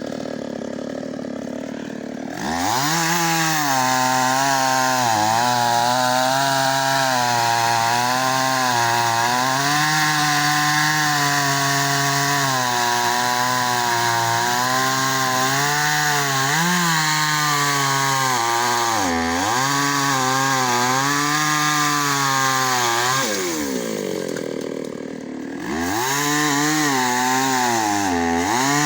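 Two-stroke chainsaw running at low speed, then revved up about two seconds in and held at full throttle while cutting wood, its pitch sagging and recovering under load. Near the end it falls back to low speed for a couple of seconds and revs up again.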